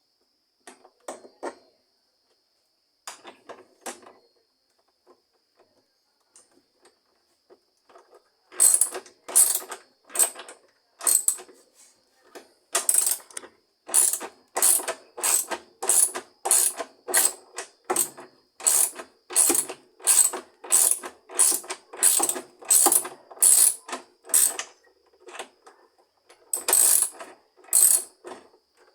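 Ratchet wrench with a 13 mm socket tightening the bolts of a washing machine's transmission, clicking in repeated back-and-forth strokes. A few strokes come first, then a steady run of about two strokes a second from about eight seconds in.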